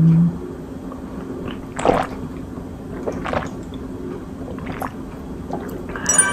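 Two people drinking beer from aluminium cans: gulping and swallowing with the liquid sloshing, and a few short clicks. Near the end, a brief vocal sound.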